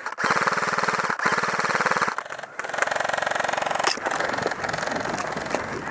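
Electric airsoft gun firing full-auto: two rapid bursts of evenly spaced shots, then about a second later a buzzing stretch of rapid mechanical cycling.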